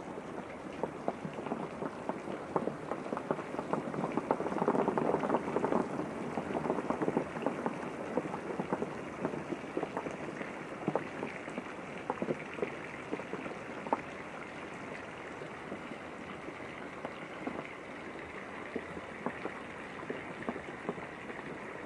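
Rain falling against a window: a steady wash of many drops with scattered sharper single drips, swelling louder for a couple of seconds about five seconds in.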